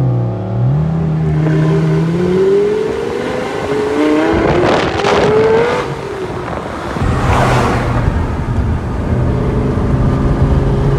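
Sports car engines accelerating away one after another, their pitch rising through the gears. About five seconds in a car passes close with a loud blast of exhaust, and after that a steady engine drone continues.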